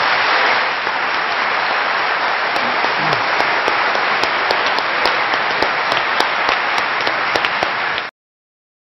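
Large audience applauding: steady, dense clapping that cuts off abruptly near the end.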